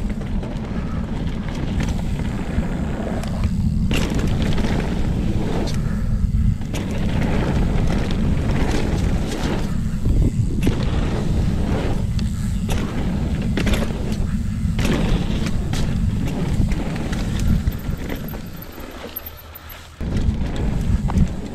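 A mountain bike descending a rough bike-park trail at speed: heavy wind rumble on a chest-mounted GoPro's microphone, tyre noise, and frequent knocks and clatter from the bike over bumps and landings. The wind rumble drops away briefly near the end, then picks up again.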